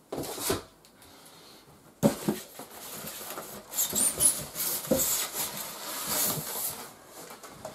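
White polystyrene foam packing blocks squeaking and rubbing against each other and the cardboard carton as they are worked loose and lifted. Starts about two seconds in as a scratchy, squeaky rustle, with a few high squeaks.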